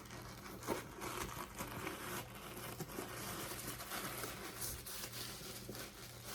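Packing padding crinkling and rustling as it is pulled out of a new handbag, in faint, irregular rustles with small clicks.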